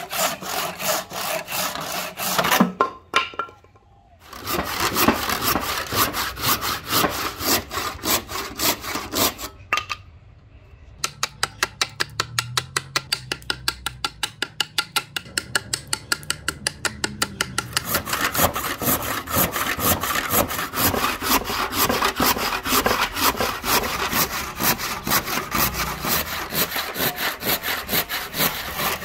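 Hand saws cutting dense ebony wood: rasping back-and-forth strokes of a panel saw, briefly stopping twice. Midway, a thin-bladed saw cuts closely spaced kerfs at a quick, even pace of about five strokes a second.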